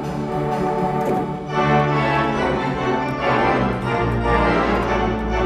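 Theatre pipe organ playing sustained chords that change about a second and a half in, with a deep pedal bass note swelling in about four seconds in.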